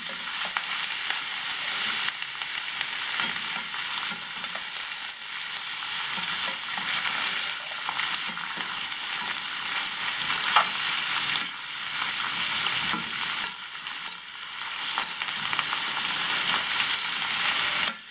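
Chopped snake gourd sizzling in hot oil in a steel kadai while being stirred with a perforated steel ladle: a steady frying hiss broken by scattered clicks and scrapes of the ladle against the pan, the sharpest about ten seconds in.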